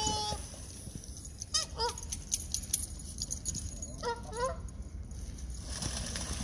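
Canada geese honking in short agitated calls, defensive at a dog in their water: a couple of calls about 2 s in and again about 4 s in. Water splashes near the end as a goose flaps its wings on the surface.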